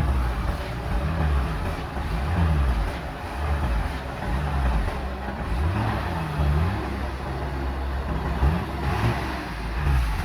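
Diesel engine of a JCB backhoe loader working, its pitch rising and falling about once a second as the revs go up and down under changing load.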